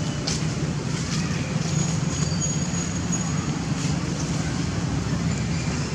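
Steady low rumble of outdoor background noise, with a faint thin high whistle lasting about a second and a half near the middle.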